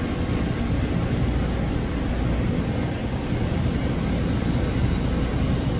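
Wind buffeting an outdoor microphone: a steady rushing noise with an uneven low rumble and no distinct events.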